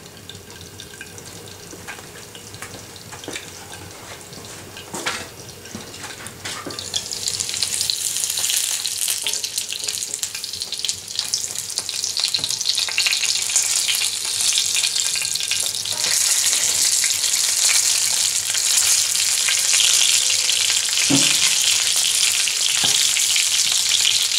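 Pack rat frying in hot grease in a cast-iron skillet, sizzling and popping; the cook says it is nearly done sizzling, which he takes as the sign that the water is cooked out and the meat is done through. The sizzle is faint at first and grows much louder about seven seconds in, when the glass lid comes off, with a few clicks and knocks of a metal utensil in the pan.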